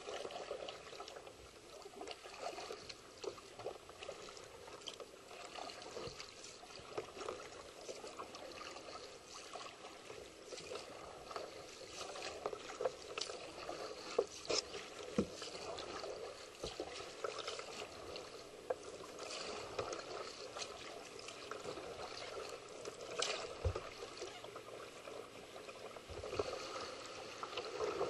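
Canoe paddling on calm river water: the paddle dipping and splashing, with dripping and irregular small clicks and a few sharper knocks.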